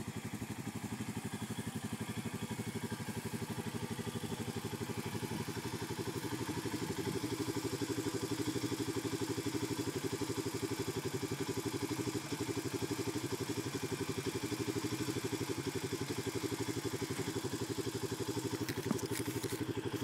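ATV engine running steadily, a little louder from about seven seconds in.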